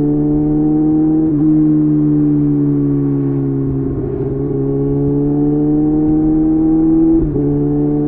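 Kawasaki ZX6R inline-four engine running through a Leo Vince aftermarket exhaust, heard from the rider's seat. The engine note climbs slowly and drops suddenly twice, about a second in and near the end, as the bike shifts up a gear.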